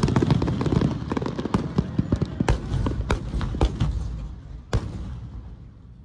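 Aerial fireworks: a shell bursts, followed by a dense crackle of many sharp pops that thins out and fades over a few seconds, with one last louder pop near the end.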